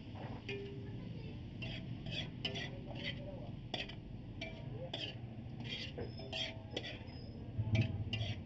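Metal spatula scraping and clinking against an aluminium wok while stir-frying meat and bok choy: an irregular run of short strokes, about two a second.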